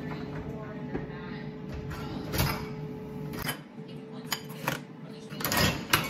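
Dishes, cups and plastic food containers clattering against a dishwasher's wire rack as it is loaded, with louder clanks about two and a half and six seconds in, over a steady low background.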